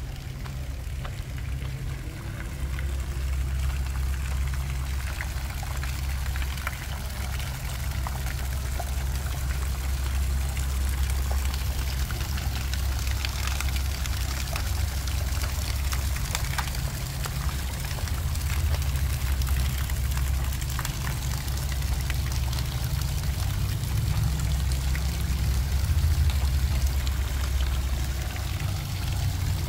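Fountain water jets splashing and pouring into a stone basin, with a steady low rumble underneath.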